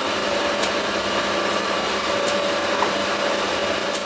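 Steady drone of a fishing boat's engine running, heard from inside the cabin.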